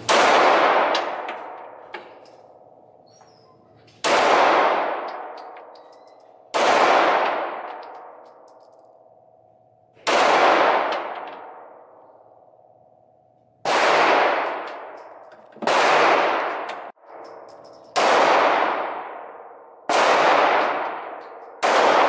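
Semi-automatic pistol fired slowly at an indoor range, about nine single shots two to four seconds apart. Each shot rings and echoes for a couple of seconds before the next.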